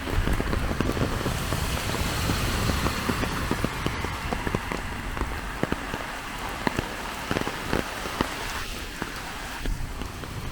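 Heavy rain falling steadily, with many sharp ticks of single drops striking close by.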